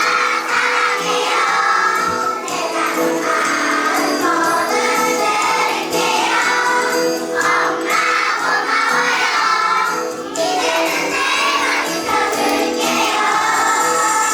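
A song with jingle bells ringing and a chorus of voices singing, playing steadily throughout.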